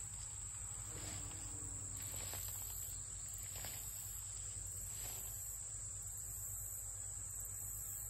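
Insect chorus of crickets in summer vegetation: a steady high-pitched drone with a still higher trill that keeps switching on and off.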